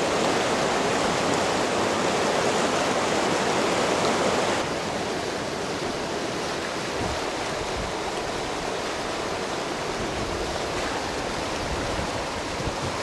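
Flood-swollen river rushing past debris, a steady noise of churning water. About four and a half seconds in it drops to a softer rush.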